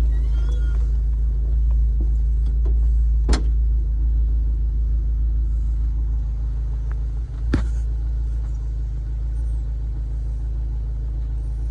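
Jeep driving along a rough farm trail: a steady low engine and drivetrain rumble, with two sharp knocks about four seconds apart.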